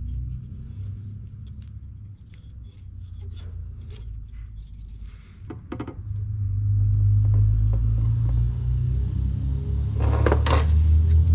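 Light metal-tool handling: a telescoping gauge and dial caliper clicking and scraping against a turbo housing and a wooden workbench. Under it runs a low rumble that grows louder about six seconds in.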